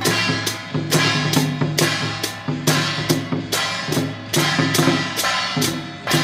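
Taiwanese temple-procession gong-and-drum troupe playing: a barrel drum, clashing hand cymbals and gongs struck together in a steady beat of about two strokes a second, the cymbals ringing after each stroke.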